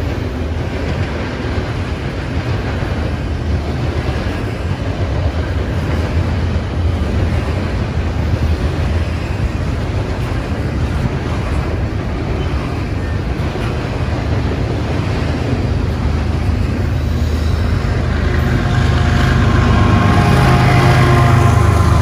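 Double-stack intermodal well cars rolling past close by, a steady low rumble of steel wheels on rail. From about 18 seconds in, a BNSF diesel locomotive in the train comes alongside and its engine hum grows louder.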